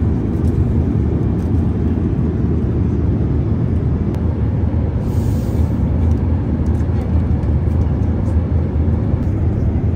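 Steady cabin noise inside a Boeing 787-8 in cruise flight: a constant low rumble of airflow and engines.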